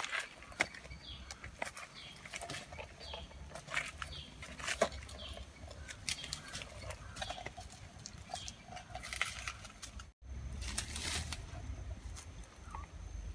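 Footsteps in rubber flip-flops on wet stones and dead leaves, irregular slaps and crunches, with leaves and undergrowth rustling. About ten seconds in the sound drops out for a moment, then the rustling of pushing through dense plants goes on.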